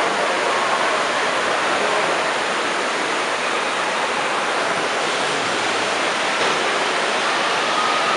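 Steady rush of running water in an indoor water park, from the slides, fountains and pool jets.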